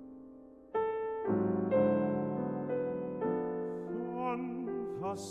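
Gentle piano lullaby music. A held chord fades out, then new piano chords come in just under a second in, and a singing voice joins near the end.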